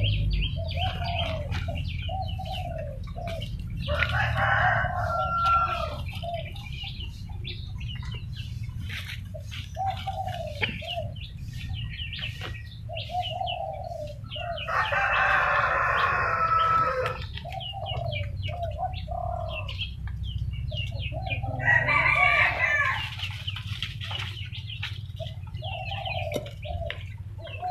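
Caged watercock calling: a steady run of short clucking notes, a little more than one a second, with louder, harsher bursts of calling about four, fifteen and twenty-two seconds in.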